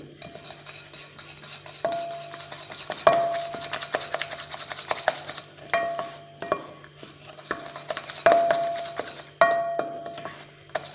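Wooden spoon beating margarine and icing sugar in a glass mixing bowl, with irregular knocks of the spoon against the glass, several of them leaving a short ringing tone.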